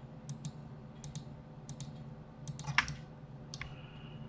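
Clicks of a computer mouse and keyboard, mostly in quick pairs about every three-quarters of a second, with one louder click about three seconds in, over a steady low hum.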